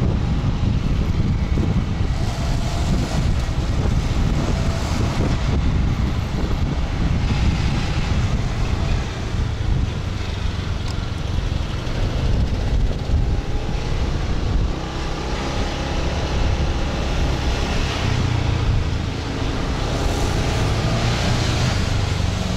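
Wind buffeting the microphone on a moving motorbike, with the bike's engine running and other traffic around it.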